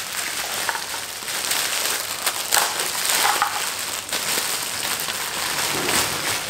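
Clear plastic bag crinkling and crackling as a statue is pulled out of it: a continuous rustle with many small sharp crackles throughout.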